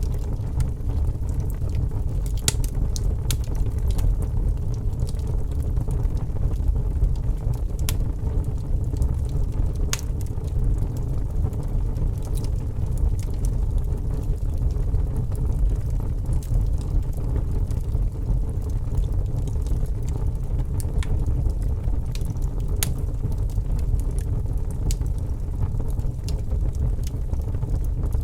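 Wood fire crackling in a fireplace: scattered, irregular sharp pops and snaps over a steady low rumble.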